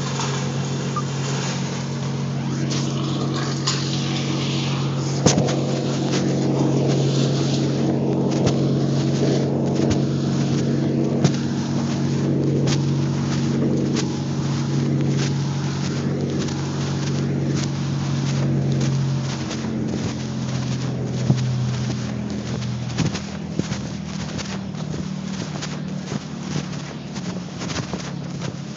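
A tree crew's engine-powered equipment running steadily, its pitch settling lower about twenty seconds in. Scattered knocks and clicks sound over it, more often near the end.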